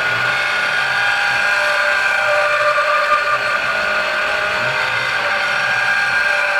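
Precision Matthews PM-727M CNC-converted mill cutting aluminium angle with an end mill: a loud, steady machine whine made of several tones that step up and down in pitch every second or so as the cut moves.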